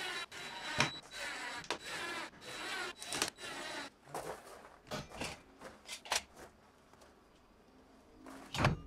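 Cordless drill driving washer-head GRK screws through a polycarbonate door panel into the wooden frame: repeated short runs of motor whine that rise and fall in pitch as each screw goes in, stopping after about six seconds. A brief louder sound comes near the end.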